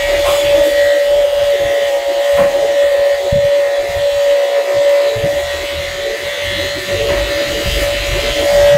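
Corded electric pet hair clipper running with a steady hum as it trims the fur on a dog's head.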